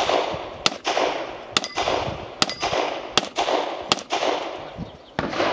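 Revolver shots fired in a steady string, about one every 0.8 s, each with an echoing tail; two shots come close together near the middle, and a short ringing tone follows two of the early shots.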